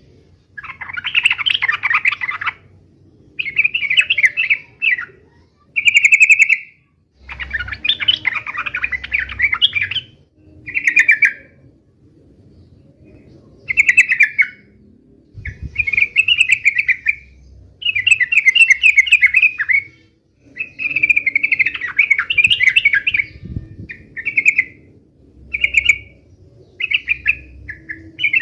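Yellow-vented bulbul (cucak trucuk) singing: repeated bursts of rapid, bubbling chattering notes, each up to about two seconds long, with short pauses between phrases.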